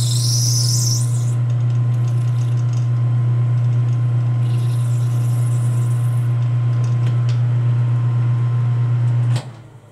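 Metal lathe running a facing cut on a caster socket: a steady low hum from the lathe's drive, with a high, wavering squeal from the cutting tool near the start and again about halfway. The hum stops suddenly near the end as the lathe is switched off.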